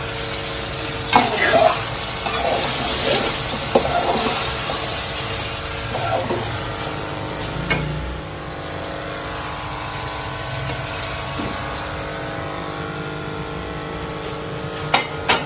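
Steel spoon stirring chicken masala as it sizzles in a steel kadai, with a few sharp metal clinks of spoon on pan, two close together near the end, over a steady hum.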